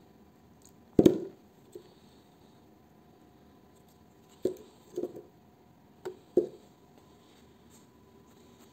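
Electric motor stators being handled and set down on a workbench and against each other: a loud metal clunk about a second in, then four lighter knocks in two pairs.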